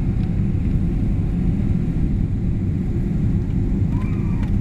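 Steady low rumble of an airliner's engines and rushing air inside the passenger cabin while descending to land, with a brief faint voice about four seconds in.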